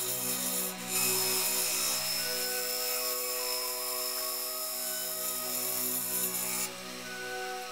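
Turning gouge cutting the spinning ash segmented vase on a wood lathe: a steady shearing hiss of shavings over the lathe's running hum. It starts about a second in and stops suddenly near the end as the tool comes off the wood.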